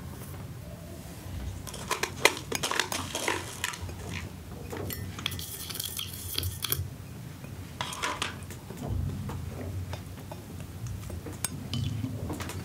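Kitchen dishes and cutlery clattering: a quick run of clinks and knocks, then about two seconds of steady hiss in the middle, and a few more knocks later.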